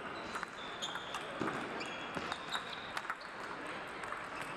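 Celluloid-type table tennis balls ticking off bats and tables, irregular sharp clicks several times a second, over the murmur of a large sports hall, with a few short high squeaks.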